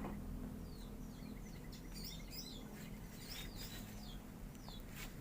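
Caged songbirds chirping: a string of short, high, falling chirps, with a faint fast trill about two seconds in.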